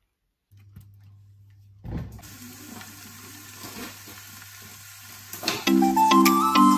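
Raw minced beef sizzling in hot oil in a non-stick frying pan, a steady hiss starting about two seconds in. Background music with a regular beat comes in about five and a half seconds in and is louder than the sizzle.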